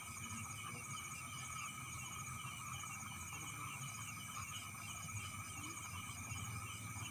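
Night chorus of crickets and other insects: several steady, rapidly pulsing trills at different pitches overlap continuously, over a faint low rumble.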